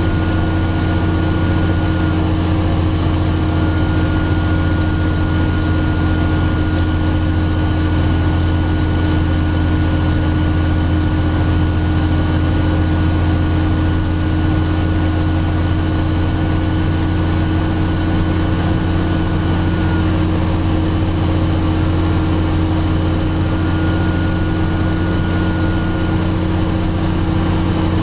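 Diesel engine of a loaded Kenworth logging truck, about 50,000 kg gross, running at a steady speed with a deep, even drone and no gear changes.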